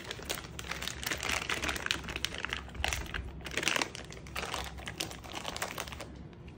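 Plastic packaging crinkling and rustling, with scattered small clicks and knocks from gear being handled.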